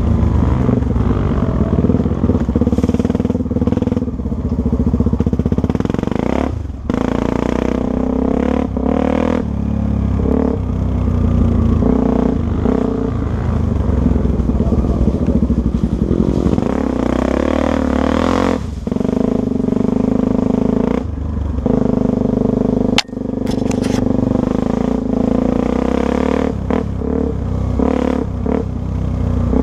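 Four-stroke single-cylinder dual-sport motorcycle engine running under way, its revs rising and falling as the throttle opens and closes. The engine note drops off briefly a few times, and there is a sharp click about 23 seconds in.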